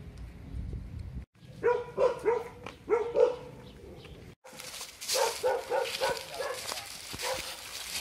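A dog barking in quick runs of short barks, several a second, broken off twice by brief dropouts.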